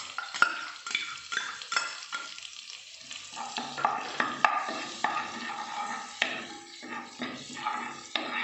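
Chopped green chillies and ground spices sizzling in a little hot oil in a nonstick frying pan, stirred with a spatula that scrapes and taps against the pan many times.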